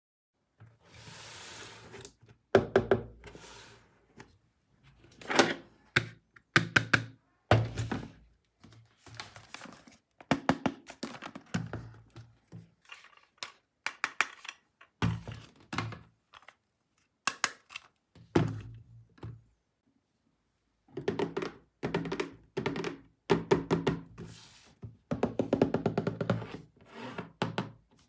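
Toy power tools and their packaging being handled: repeated thunks, knocks and clicks of hard plastic, with a brief rustle about a second in and a pause of a second or two about two-thirds of the way through.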